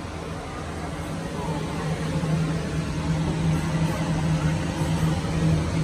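A steady low mechanical hum over a noisy indoor background, growing a little louder after the first couple of seconds.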